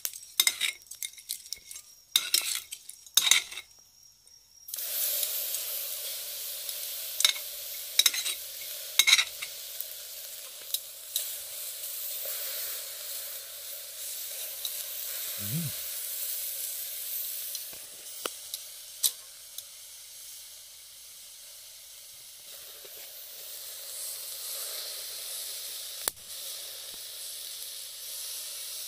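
Metal tongs clicking against a wire grill net. About five seconds in, a steady sizzle starts as pieces of beef omasum cook on the net over charcoal, with now and then a sharp tong click.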